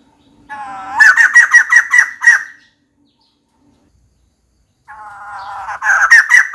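Female white-crested laughingthrush calling: two loud bouts of cackling, each starting with a softer rising chatter and breaking into a quick run of about six sharp notes. It is the female's call to a mate.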